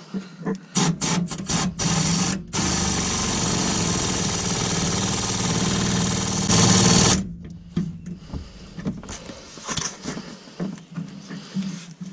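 Air-powered wrench driving the nut on a truck's sway bar end link: a few short bursts, then one run of about four and a half seconds that gets louder near its end and cuts off suddenly. Light knocks of tools on metal follow.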